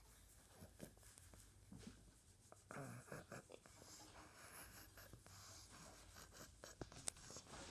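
Near silence, with faint rustling and a few light clicks.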